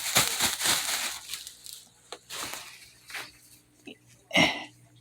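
Rustling and crinkling of packaging and faux-fur fabric as a fursuit body is handled and pulled out, dense for the first second or so, then in scattered short bursts, with one louder rustle near the end.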